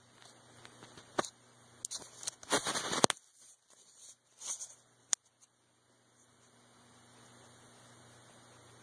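Phone handling noise: fingers rubbing, tapping and shifting on the phone close to its microphone, giving scattered clicks and a louder scraping rustle a little over two seconds in. A faint steady hum runs underneath.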